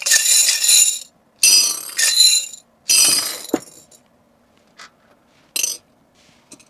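Bright clinking and jingling from packing items being handled, in three bursts of about a second each, then a shorter one near the end.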